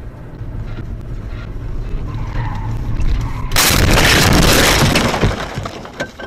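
Steady road noise from a car, then about three and a half seconds in a sudden loud crash that lasts over a second before dying away: a road collision caught on a dashcam.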